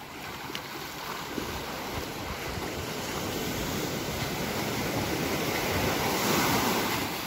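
Small waves washing onto a sandy beach, with wind on the microphone; the wash swells louder late on.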